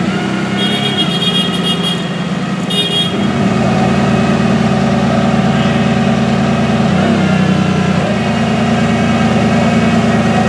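Maserati MC12's V12 engine idling, a steady low drone with no revving. In the first three seconds two short high-pitched tones sound over it.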